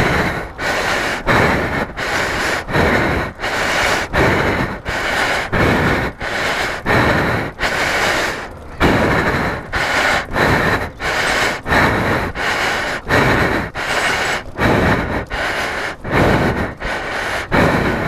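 A man panting heavily and rapidly close to the microphone, in an even rhythm of loud breaths about every half second. He is out of breath from the effort of pushing a heavy motorcycle on foot.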